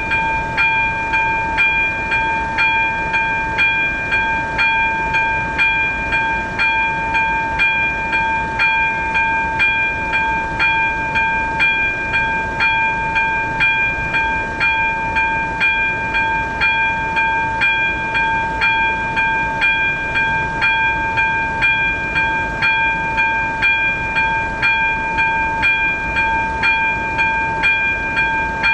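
Level-crossing electronic warning bell (AŽD ZV02) ringing in a fast, even series of strikes, each ringing into the next. The crossing is in its warning state, barriers down and lights flashing, for an approaching train.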